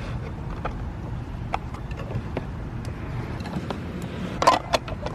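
Light clicks and knocks from a plastic RC bait boat being handled, over a steady low rumble, with a brief louder clatter about four and a half seconds in.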